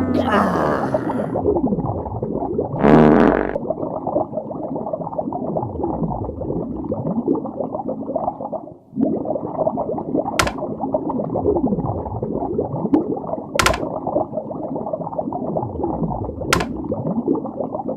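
Sound-effects soundtrack: a dense low layer of many gliding tones sweeping up and down, with a louder burst about three seconds in and three sharp clicks later on.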